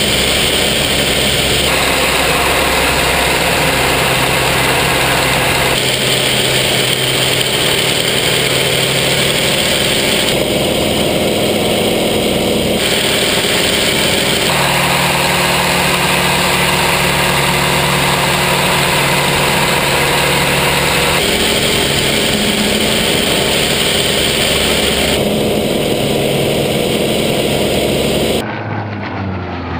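Hawker Sea Fury's piston engine running at high power with airflow noise, as heard from cameras in and on the aircraft. The tone changes abruptly every few seconds. Near the end it turns thinner and quieter, with sliding tones.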